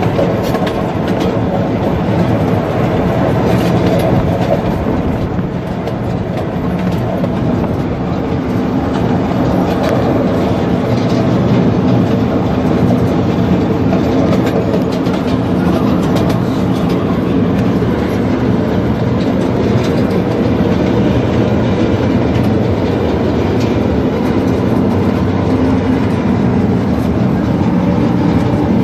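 Ride-on miniature train running along its track, heard from aboard its caboose: a steady, loud running noise with the clicking of wheels on the rails throughout.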